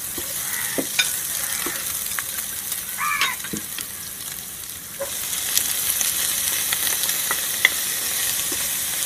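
Sliced onions sizzling in hot oil in a frying pan, with a wooden spatula scraping and clicking against the pan as they are stirred. The sizzle grows louder about five seconds in, as a plate of sliced shallots goes into the pan to be sautéed.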